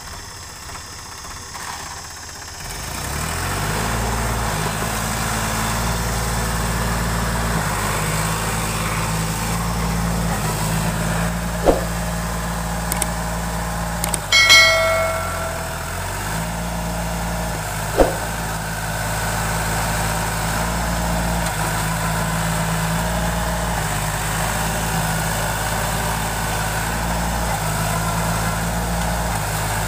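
Sonalika tractor's diesel engine starting up about two seconds in, then running steadily, its speed dipping briefly about halfway. A short ringing tone sounds about halfway, and there are two sharp clicks a few seconds either side of it.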